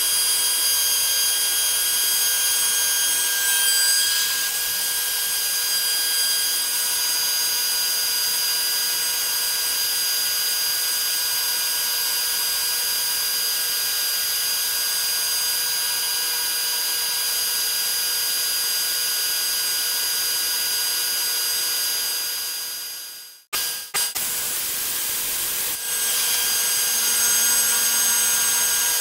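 DeWalt 611 compact router on a CNC machine, milling quarter-inch aluminium plate with a small end mill: a steady high-pitched whine with cutting noise. The sound fades out for a couple of seconds about four-fifths of the way through, then resumes.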